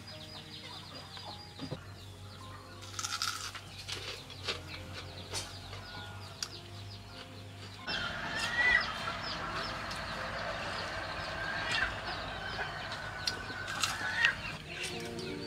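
Chickens clucking and calling.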